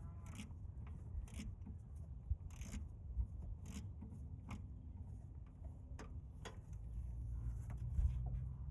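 Scattered light metallic clicks and taps of a socket wrench and extension knocking against bolts and engine-bay parts as they are worked by feel, about a dozen over several seconds, over a steady low hum.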